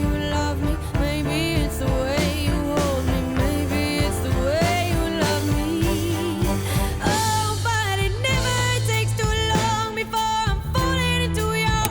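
Background music with singing over a steady beat, cutting off sharply near the end.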